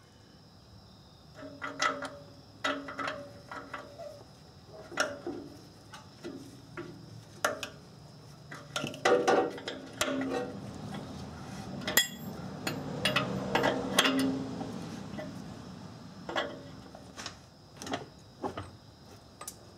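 Irregular light metallic clicks, clinks and scrapes as a new oxygen sensor is threaded into the exhaust pipe and an open-end wrench is fitted on its hex and turned to tighten it, busiest in the middle of the stretch.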